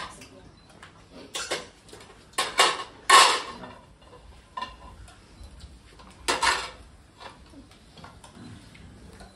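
Plates clattering as they are dropped into a metal mixing bowl, in several short bursts, the loudest and longest about three seconds in.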